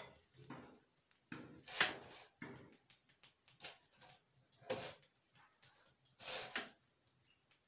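Batter-filled metal cake pans being shaken and knocked on the counter to level the batter: a handful of separate short knocks and rattles, a second or two apart.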